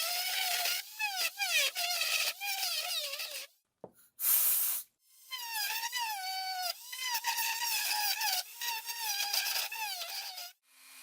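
High-speed rotary tool with a burr grinding away the plastic of a body kit panel: a high motor whine that wavers and dips in pitch as the burr bites. It stops for a moment near the middle, with a short hiss, then starts again.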